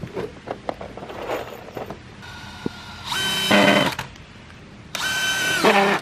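Cordless drill driving long screws into 6x6 timber in two runs of about a second each. Lower tones come in as each screw bites, and the second run's whine drops in pitch as it slows at the end. A few light knocks of wood handling come in the first two seconds.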